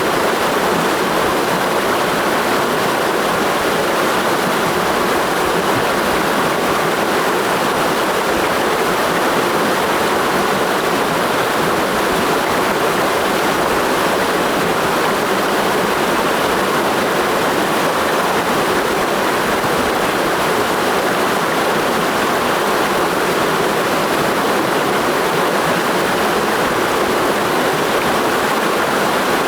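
Mountain stream rushing steadily over rocks in a steep gorge, a constant loud water roar without breaks.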